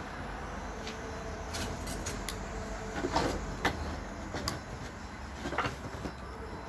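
A few scattered light clicks and knocks, the loudest in the middle, as tools and parts of a Stihl BG 86 blower engine are handled, over a steady low hum.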